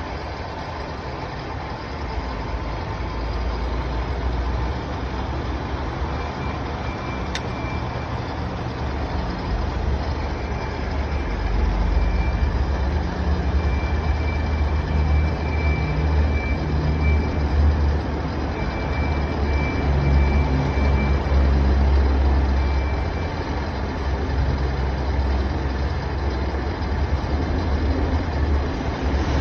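1982 Shizuoka VHR-A vertical milling machine running under test: a steady low hum from its motor and drive, louder for a stretch in the middle, with a faint high whine that comes and goes and a single click about seven seconds in.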